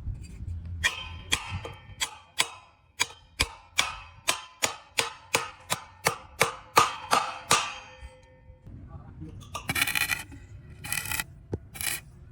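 Hammer striking steel over and over, about three ringing clangs a second for several seconds, then a few short bursts of rough noise near the end.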